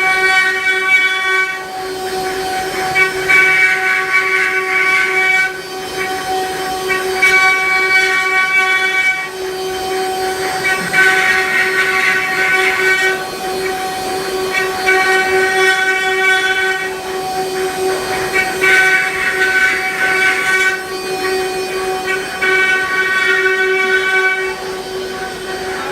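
Multi-spindle CNC wood router carving: a steady high spindle whine that swells louder and harsher for about two seconds every four seconds or so.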